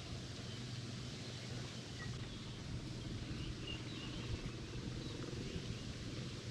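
Quiet outdoor background: a steady low hum with faint, scattered high chirps.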